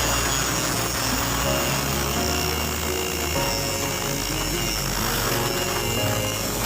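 Power grinder grinding leaf-spring steel: a steady high whine over a rough hiss, under background music with a bass line.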